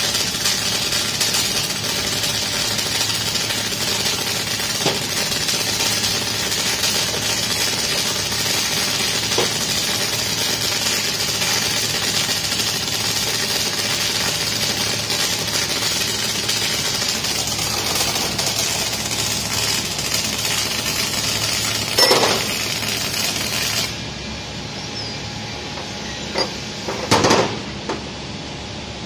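Electric arc welding on a small pipe: a steady crackling, sizzling arc that stops abruptly about three quarters of the way through. A sharp knock comes just before it stops, and a few metal clanks follow.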